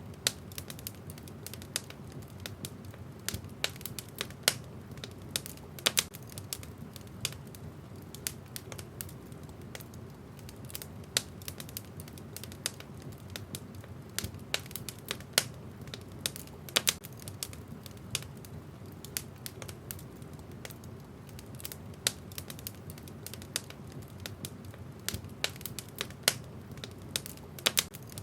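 Wood fire burning in a fireplace, crackling with frequent sharp, irregular pops and snaps over a steady low rumble of the flames.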